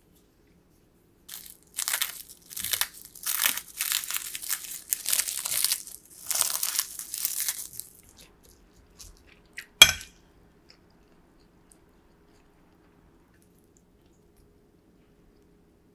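Dry, crisp crunching and crinkling in quick irregular bursts for about six seconds: sheets of roasted seaweed (gim) being crushed by hand over the dish. A single sharp click follows about ten seconds in.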